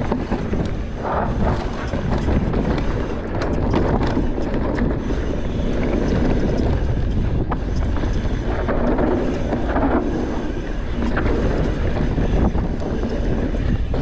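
Mountain bike riding a dirt singletrack: wind buffeting the microphone over the rumble of the tyres on the trail, with scattered clicks and rattles from the bike over bumps.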